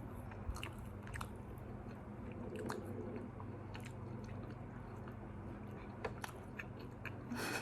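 Faint chewing and biting of fast food, with small crunches and scattered mouth clicks, over a steady low hum.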